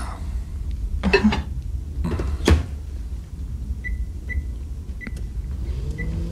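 Countertop microwave oven: the door shut with a clunk about two and a half seconds in, then several short high keypad beeps as cooking is set, and near the end the oven starts running with a steady low hum.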